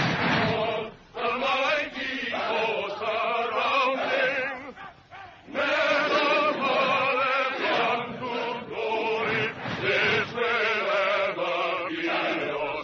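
A massed choir of men's voices singing together in held, wavering notes. The singing comes in phrases, with short breaks about one second and about five seconds in.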